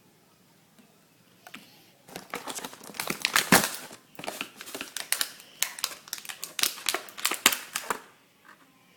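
Plastic toy packaging crinkling and crackling as it is handled and opened, a dense run of sharp crackles that starts about a second and a half in and stops near the end.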